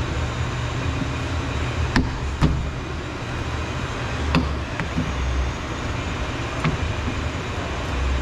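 A few sharp clicks and knocks of a plastic car door handle and its linkage being handled and fitted into the door, over a steady low background hum.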